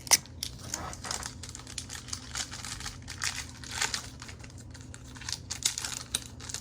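Foil wrapper of a Pokémon booster pack crinkling and cards being handled: a steady run of crisp crackles and clicks, with a sharp click just at the start.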